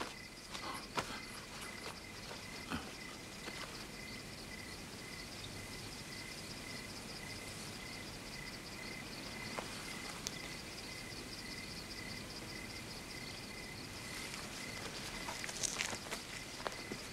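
Insects chirping steadily as a fast, even pulsing trill, like crickets at night. A few footstep-like knocks come near the start, and more near the end.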